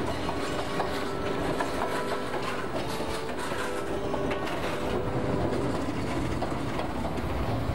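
Passenger train running, heard from an open doorway inside the carriage: a steady rumble with the wheels clicking and clattering over the rail joints.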